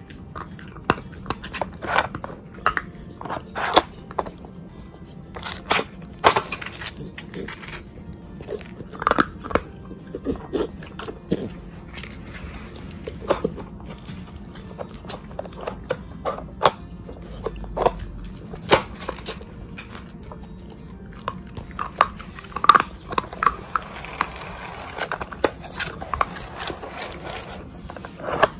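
A beagle working a Nina Ottosson Dog Brick plastic puzzle toy: irregular clicks and knocks as the plastic blocks are nosed and pawed aside, mixed with licking and the crunch of kibble being eaten.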